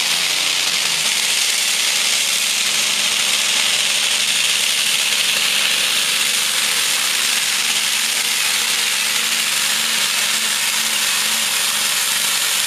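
Modified pulling tractor's big multi-stack engine running loud and steady, hitched to the pulling sled and moving off down the track.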